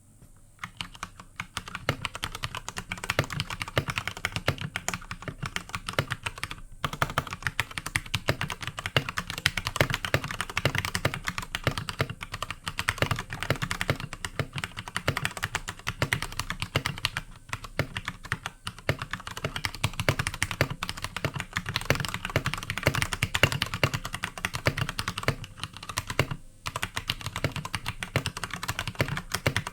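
Fast, continuous typing on an iKBC Poker II mechanical keyboard with Cherry MX Red linear switches, keys clacking as they bottom out, with short pauses about 7, 18 and 26 seconds in.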